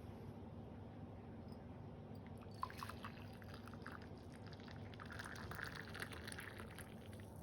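Liquid being poured, starting with a light clink about two and a half seconds in and running on as a splashing trickle that is fullest near the end, then stops.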